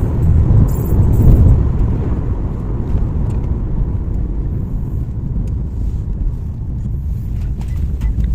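Car interior road noise while driving: a steady low rumble of engine and tyres heard from inside the cabin.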